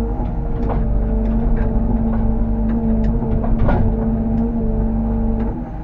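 Bobcat E85 excavator's diesel engine running steadily under hydraulic load, with a held whine over a low rumble. Several short knocks and clanks from the machine at work break through it.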